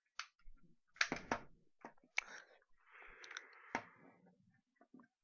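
Handling clicks and knocks from a PC356 airsoft pistol being taken in hand: several separate sharp clicks, the loudest about a second in, with a short rustle about three seconds in.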